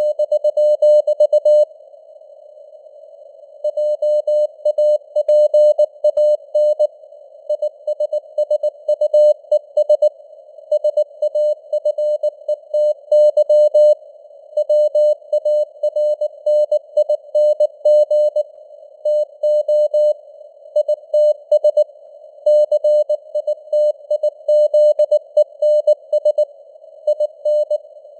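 Morse code (CW) at 19 words per minute: a single mid-pitched tone keyed on and off in dots and dashes, spelling out news headlines over a narrow band of simulated radio hiss. The keying pauses for about a second and a half near the start.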